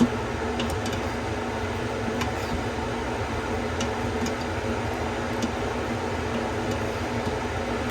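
A steady mechanical hum like a fan running, with a few faint, light clinks of a utensil stirring sauce in the Instant Pot's metal inner pot.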